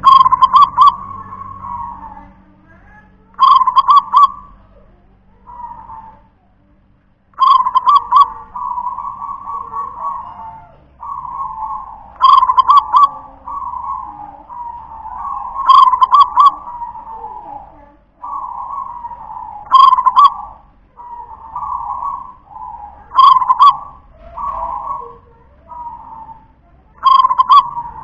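Zebra dove (perkutut) cooing. Its song repeats about every three to four seconds, each phrase opening with a loud burst of notes and running on into softer coos.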